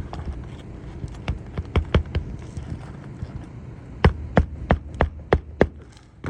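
Hammer driving roofing nails through an asphalt shingle into the roof decking: a few quick blows, then a run of six evenly spaced strikes about three a second.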